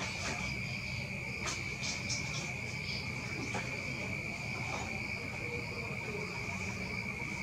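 Crickets trilling in one continuous high, steady tone, with scattered short chirps above it, over a low steady rumble.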